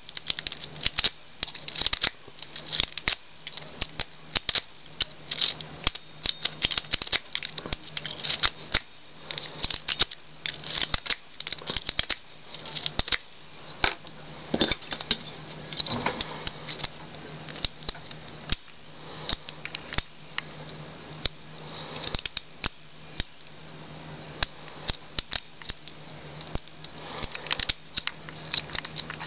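Lock pick raking in a cheap fake-brass padlock: rapid, irregular small metal clicks and scrapes as the pins are worked, with the lock not yet opening.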